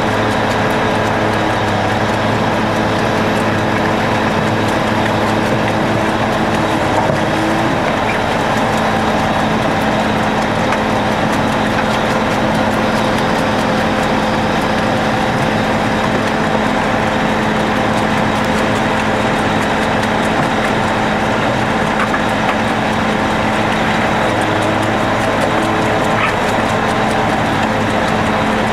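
Heavy diesel engine of trenching machinery running loud and steady at a constant speed.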